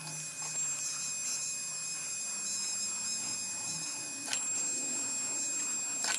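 3Doodler 2.0 3D printing pen running, its motorised extruder whirring steadily as it pushes out plastic filament, with two short clicks, one about four seconds in and one near the end.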